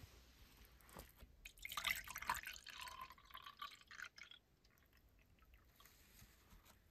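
Bottled tea poured from a plastic bottle into a plastic mug, starting about a second and a half in and lasting about three seconds.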